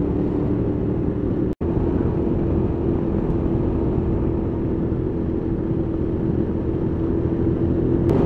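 Honda VTR250's V-twin engine running at a steady cruise, one even engine note over road and wind rumble. The sound cuts out for an instant about one and a half seconds in.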